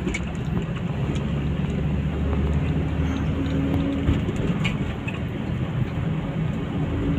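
Car engine and tyre noise heard from inside the cabin while driving on a paved road: a steady low rumble.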